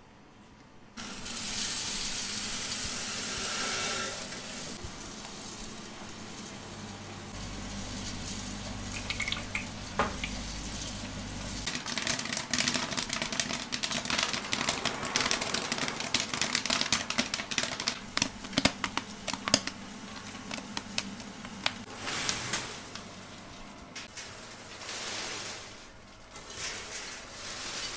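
Commercial Cretors popcorn kettle popping corn: a dense run of sharp pops and crackles over sizzling oil, thickest in the middle and thinning toward the end. A loud hissing rush for a few seconds near the start.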